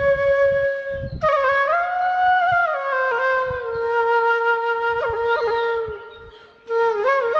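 Background music: a solo melody of held notes with slides between them, breaking off briefly about six seconds in.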